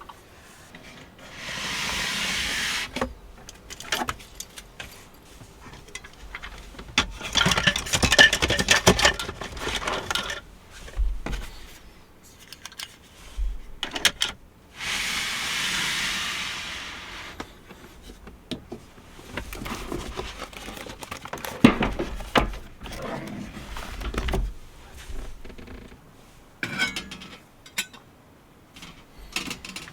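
Objects being handled at close range: clinks, knocks and scrapes, with two steady hissing sounds of about a second and a half each.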